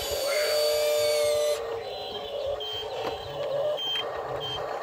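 Small electric gear motors of a radio-controlled toy excavator whining as its boom and arm move. Several steady whines sound together in the first second and a half, then shorter, quieter whines follow.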